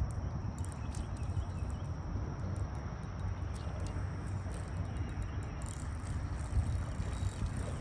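Steady low rumble of outdoor background noise, with faint scattered high-pitched ticks over it.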